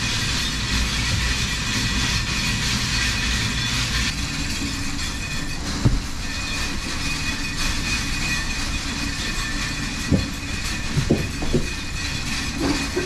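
A steady mechanical rattle and hum runs throughout. A few short thuds stand out against it as small square hay bales are thrown and stacked.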